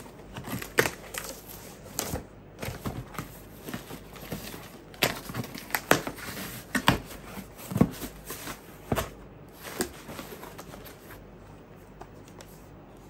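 A cardboard shipping box being torn open by hand: tape ripping, flaps pulled apart and the packaging crackling, with scattered knocks and scrapes as the product box is lifted out. It goes quieter for the last few seconds.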